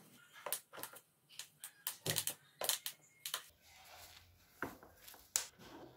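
Office chair's hard plastic backrest and armrest parts clicking and knocking together as they are handled and fitted: a dozen or more irregular sharp clicks, some in quick clusters.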